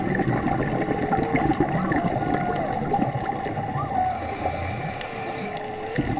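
Humpback whale song heard underwater: several long calls that glide up and down in pitch, one near the end slowly rising, over a steady rush of water noise.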